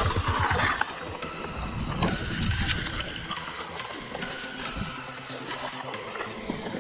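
Hardtail e-mountain bike rolling fast downhill on a dirt forest trail: tyre rumble over roots and leaf litter, with the bike rattling and wind on the microphone. It is loudest, with rapid bumps, in the first second.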